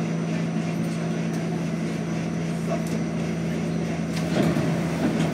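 Westinghouse-Amrail R68 subway car standing at a station platform, its onboard equipment and air conditioning giving a steady low hum.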